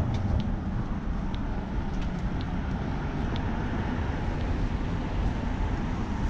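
Steady low rumble and hiss of outdoor background noise, with a few faint, short, high-pitched ticks scattered through it.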